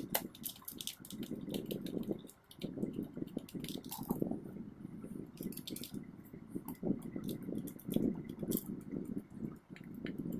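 Ceiling fan's bolts being tightened with a hand tool: irregular metal clicks and ticks over scraping and handling of the metal fan body.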